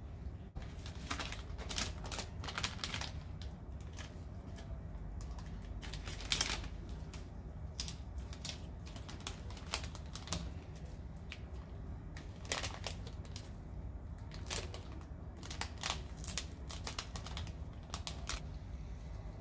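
Clear plastic cellophane bags crinkling and crackling in irregular bursts as gloved hands slide cookies into them and handle the bags, over a steady low hum.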